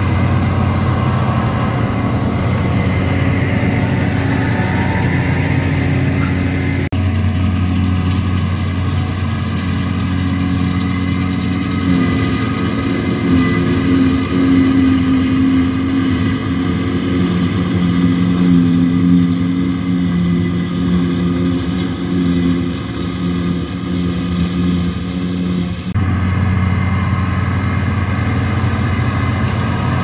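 Case IH tractor diesel engines running steadily under load, with a trailed forage harvester chopping grass and blowing it into a silage trailer. The engine note changes abruptly twice.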